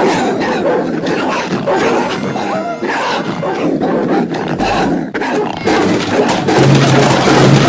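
Cartoon animal sound effects: a run of rough, loud animal cries from villain stray-animal characters, one after another with short breaks. A steady low hum comes in near the end.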